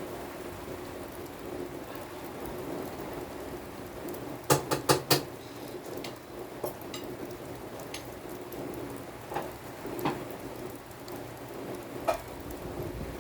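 Steady rain falling, with a quick run of about five sharp ticks a little before the middle and a few single ticks scattered later.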